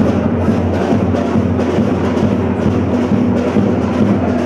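Loud, dense drumming that goes on without a break.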